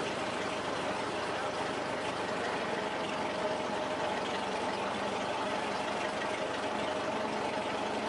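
Vintage car's engine running steadily at low speed, heard from on board the moving car, with an even hum.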